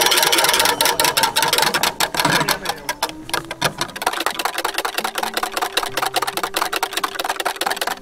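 A wire whisk beating takoyaki batter in a plastic measuring jug: fast, continuous clicking and rattling of the wires against the jug, a little softer after about three seconds.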